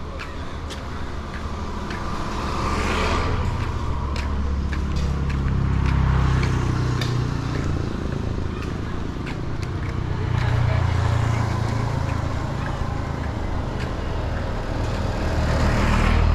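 Motor vehicles passing close by on a street, their engine noise swelling and fading three times, with light ticks throughout.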